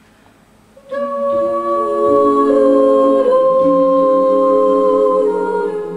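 An a cappella vocal group sings slow, sustained chords in several parts without instruments, entering about a second in and holding each chord.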